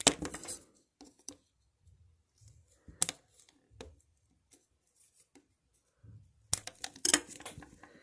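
Plastic paint markers clicking against each other and crinkling wrapping being opened, in short bursts: a sharp crackle at the start, another about three seconds in, and a longer bout of crinkling and clicks from about six and a half seconds in.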